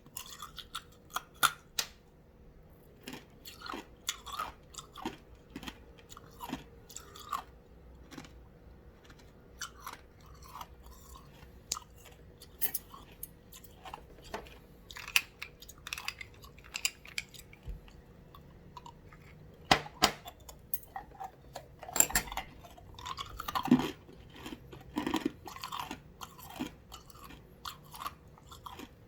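Ice cubes being bitten and chewed close to the microphone: irregular sharp crunches and cracks with softer grinding between them, loudest around two-thirds of the way through.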